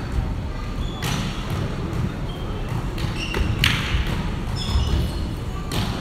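Volleyball gym sounds echoing in a large hall: a few sharp ball impacts on the hardwood court, the loudest about halfway through, with brief sneaker squeaks and distant players' voices.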